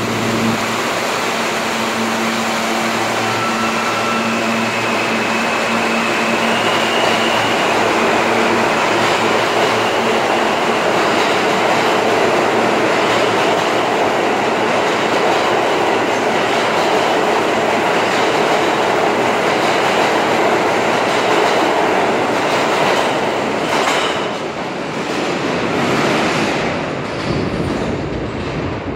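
New York City Subway R160 train pulling out of the station. It starts with a steady hum and a faint rising motor whine. Then comes the long, loud rush and rumble of the cars running past, with a few wheel clacks over rail joints as the last cars go by, fading into the tunnel near the end.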